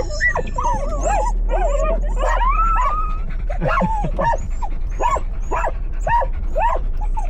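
Several excited dogs whining and yipping in anticipation of being let out for a walk. Long wavering whines come first, then from about halfway a run of short yips about twice a second, over a low steady hum.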